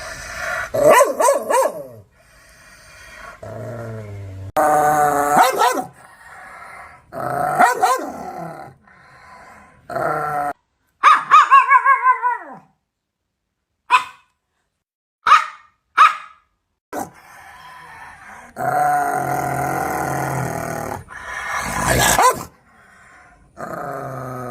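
Large dogs barking and growling aggressively in a string of short clips cut together. The barks start and stop abruptly, with three short, sharp single barks near the middle and a long, drawn-out growl a little later.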